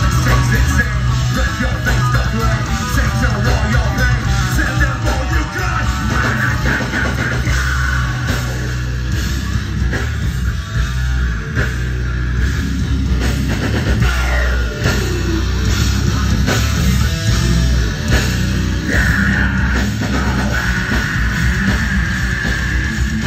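A metal band playing live and loud: distorted electric guitars, bass guitar and a drum kit through a PA, heard from within the crowd.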